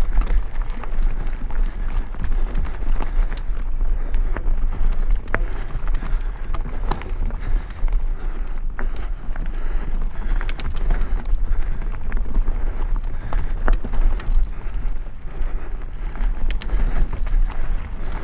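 Mountain bike riding fast down a rocky gravel trail: tyres crunching over stones and the bike rattling, with frequent sharp knocks as it hits rocks. A steady deep rumble of wind on the microphone runs underneath.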